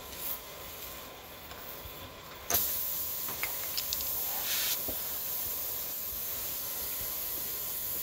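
Air hissing steadily out of a punctured car tire during a plug repair, starting suddenly with a sharp click about two and a half seconds in, with a few faint clicks from the plug-kit tools over it.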